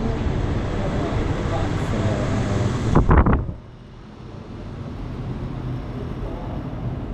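Steady background noise with indistinct murmuring voices. About three seconds in there is a short cluster of knocks, then the sound drops suddenly to the much quieter hush of a large, mostly empty hall.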